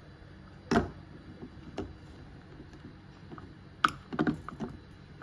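Scattered plastic knocks and clicks of a small blender's blade lid being handled and fitted onto its jar, with a louder knock a little under a second in and a quick cluster of clicks near four seconds in; the motor is not running.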